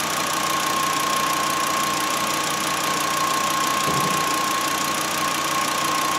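Volkswagen Jetta's 2.5-litre five-cylinder engine idling steadily, under an even hiss with a constant high-pitched whine. A soft low bump about four seconds in.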